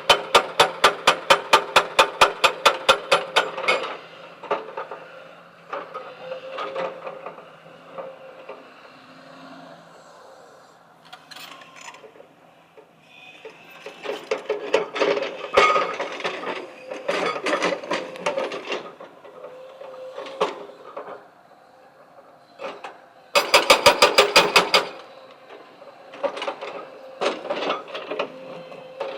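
Stone-crushing machinery at work: rapid, evenly spaced hammering blows at about seven a second, in two bursts of several seconds each, with looser clusters of knocks and rattles between them. A steady machine hum runs underneath.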